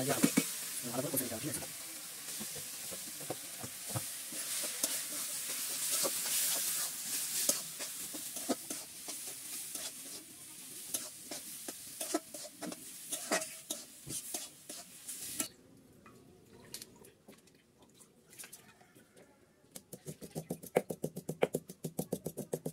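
Cabbage and ground spices frying in mustard oil in a small metal kadai, sizzling while a metal spatula stirs and scrapes the pan. The sizzle stops abruptly about two thirds of the way through, and near the end a knife chops rapidly and evenly on a wooden board.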